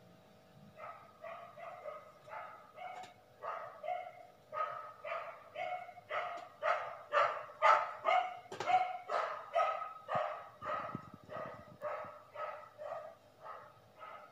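An animal's short, pitched calls repeated over and over, about three a second, growing louder toward the middle and fading toward the end.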